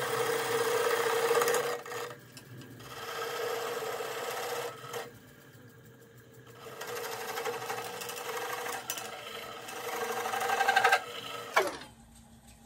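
Wood lathe spinning a square walnut and cherry bowl while a hand-held turning tool cuts away the tenon on its base: a steady hum from the spinning, with spells of cutting noise broken by two short pauses. Near the end the hum suddenly drops in pitch and level as the lathe is slowed.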